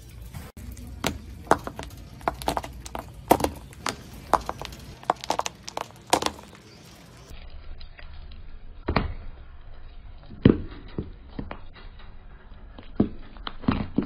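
A string of quick sharp clicks and taps, then a few separate loud cracks a second or two apart as a car tyre rolls slowly over a row of small powdery incense cones and crushes them.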